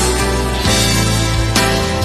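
Instrumental passage of a Mandarin pop ballad, a full band with a new chord struck about once a second, leading into the sung verse.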